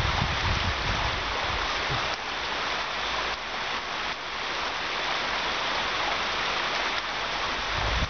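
Heavy rain pouring down on a paved patio and garden: a dense, steady hiss.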